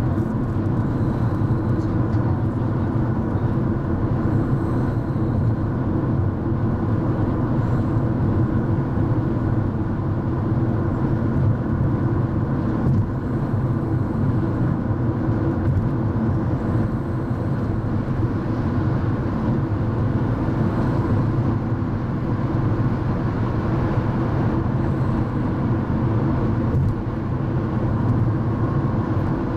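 Steady in-cabin drone of a Mercedes-Benz car cruising on a highway: tyre and engine rumble, heaviest in the low end, holding even throughout.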